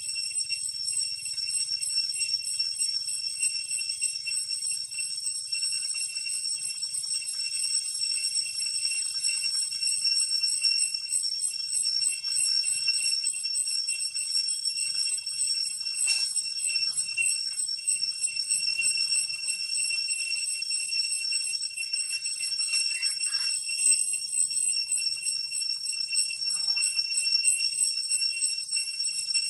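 Steady, high-pitched drone of an insect chorus, several constant tones with a fast pulsing at the top, with a few brief faint clicks or rustles.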